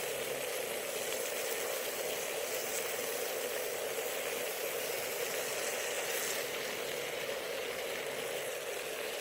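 Potatoes, onions, red peppers and mushrooms frying in a crowded pan, a steady sizzle.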